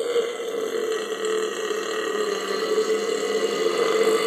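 A person's long, unbroken belch held at one steady pitch.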